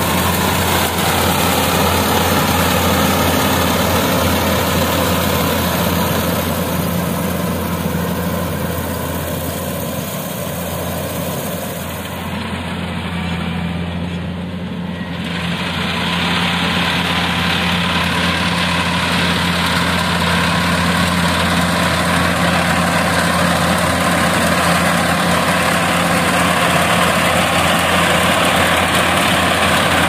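Kubota AR70 tracked rice combine harvester running steadily while cutting rice: diesel engine and machinery with a steady drone. The higher part of the sound thins out briefly about twelve to fifteen seconds in, then comes back.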